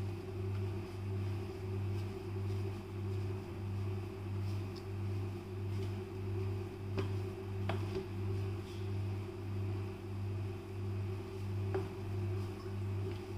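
A steady low mechanical hum that swells and fades about one and a half times a second. A few light clicks come from fingers on a steel plate as hands crumble soft chhena.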